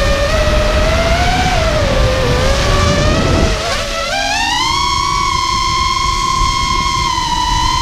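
GEPRC LX5 FPV quadcopter's brushless motors and propellers whining in flight, the pitch wavering and dipping as the throttle changes, then climbing to a higher steady whine about four seconds in as the throttle is raised. A low rumble runs underneath.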